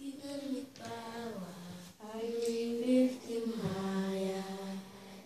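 Children and women singing a worship song together in long phrases with held notes.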